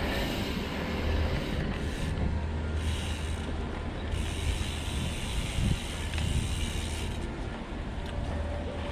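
Wind rushing over the microphone and the knobbly tyres of a Trek Remedy 8 mountain bike rolling steadily along a canal towpath.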